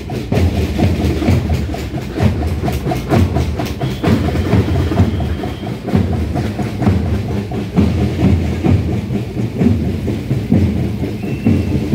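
Drums beating a steady rhythm, with deep low strokes about once a second and quicker, lighter beats between.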